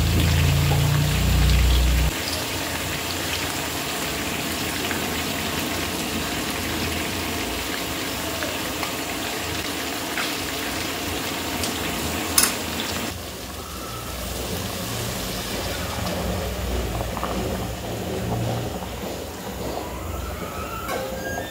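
Chicken pieces frying in an aluminium kadai with ginger-garlic paste, a steady sizzle, with a low hum that stops about two seconds in and a sharp click near the middle. After that the sound drops to the quieter bubbling of a curry simmering in an open pressure-cooker pot.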